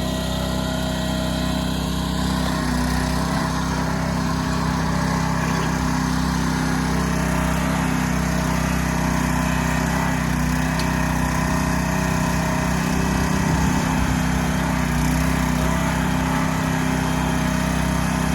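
Small gas engine of a Harbor Freight towable backhoe running steadily.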